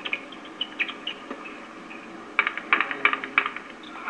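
Sharp clicks and taps from a doubles tennis rally, with a few single strikes early on and a quick cluster of clicks about two and a half to three and a half seconds in.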